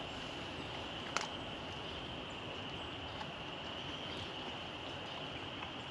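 Steady woodland background hiss with a faint, continuous high-pitched chorus running through it, and a single sharp click about a second in.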